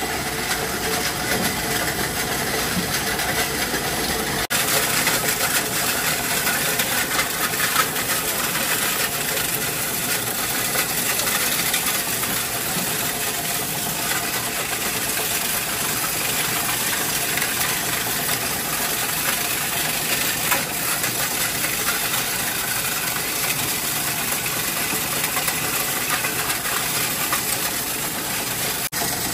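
Plastic granulator running steadily while red plastic taillight scrap is fed into its hopper, the motor's steady noise mixed with a constant clatter of pieces being chopped.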